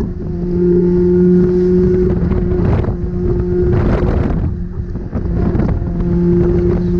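Toyota 2ZZ-GE four-cylinder car engine humming at steady revs while driving, over heavy road and wind rumble, with two brief whooshes about three and four seconds in.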